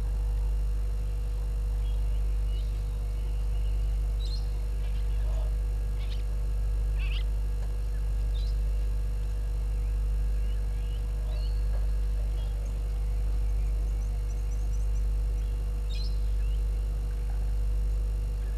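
A steady low hum that swells and fades gently about once a second, with scattered short bird chirps and calls over it.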